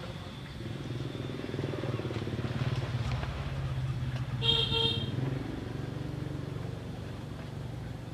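A passing motor vehicle's engine running, growing louder through the middle and then easing off, with one short horn toot about four and a half seconds in.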